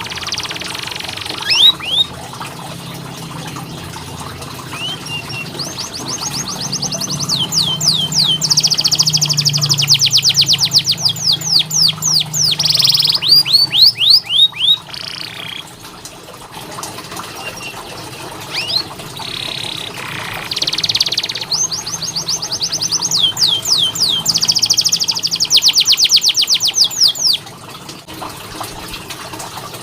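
Domestic canary singing: two long rolling trills of rapid repeated notes, about ten a second, with short chirps in between.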